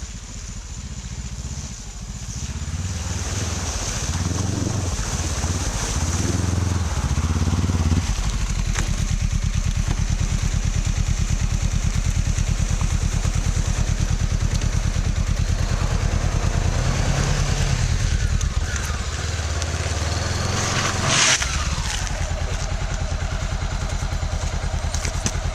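An engine running with a quick, even pulse. Its pitch rises and falls a few times in the first several seconds, then it runs steadily, and a brief clatter sounds about 21 seconds in.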